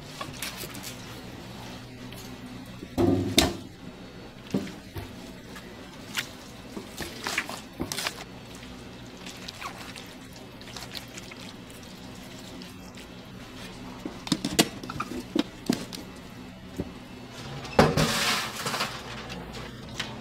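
Food-preparation sounds: scattered knocks and clinks over a steady low hum, with two louder bursts about three seconds in and near the end, and faint background music.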